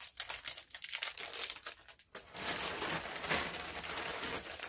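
Packaging crinkling and rustling as a parcel is handled and opened: scattered crackles at first, then continuous dense crinkling from about halfway through.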